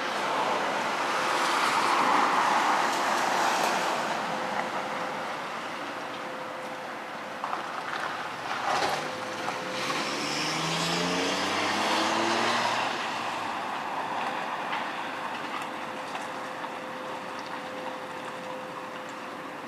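Loud unexplained outdoor drone, a rushing noise that swells and fades twice over a steady hum, with a tone that slides in pitch partway through; it is the kind of mysterious 'strange sky sound' that has been likened to a machine or a horn.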